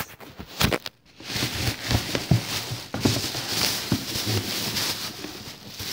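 Rustling and scattered light clicks and knocks of things being handled and rummaged through, with the phone jostled as it moves.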